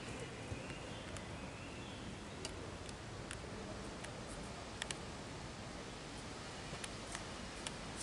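Steady background hiss of outdoor ambience with about eight faint, sharp ticks scattered through it.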